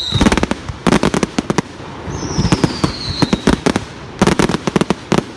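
Firecrackers going off in quick clusters of sharp cracks, one burst after another. About two seconds in, a high whistle falls in pitch.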